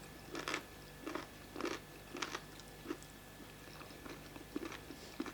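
A person chewing food, with wet mouth sounds in a steady rhythm of roughly two chews a second.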